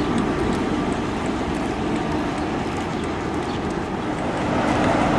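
Class 47 diesel locomotive's Sulzer twelve-cylinder engine running as the locomotive moves along the platform, a steady rumble with a held low drone, growing louder about four and a half seconds in.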